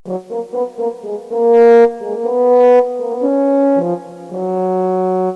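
A short brass fanfare sound effect: a quick run of short notes, then a few long held notes, ending on a lower held note that cuts off. It is a suspense-and-reveal cue that fills the pause before the bike's total weight is announced.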